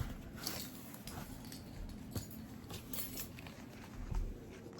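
Faint handling noises: a few light clicks and rustles as the pizza box and its packaged accessories are moved, over a low steady room hum.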